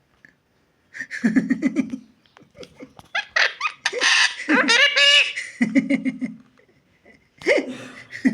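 Talking parrot vocalising: short laugh-like bursts about a second in, near six seconds and near the end, with a run of high, gliding squawky calls in between.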